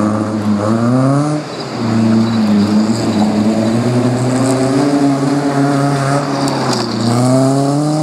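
Opel Manta rally car's engine revving hard under load. The pitch climbs, drops sharply about a second and a half in, holds with small rises and falls, then dips and climbs again near the end.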